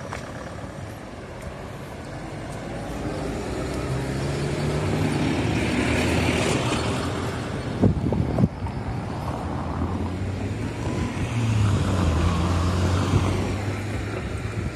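Road traffic passing close by: vehicles go by one after another, engine and tyre noise swelling and fading twice. Two sharp thumps come in quick succession about halfway through.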